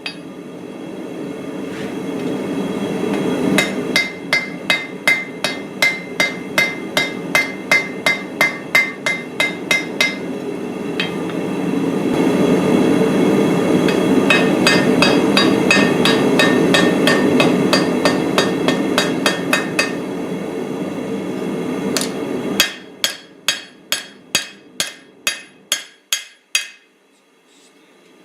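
Blacksmith's hammer striking steel on an anvil while forging a small cleaver, in runs of about three blows a second with a ringing tone on each strike. A steady rushing noise underneath cuts off suddenly about 22 seconds in, and the blows carry on, a little slower and clearer.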